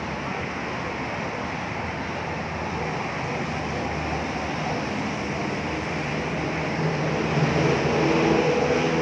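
Busy street noise, a steady wash of traffic. About two-thirds of the way in, a motor vehicle's engine grows louder.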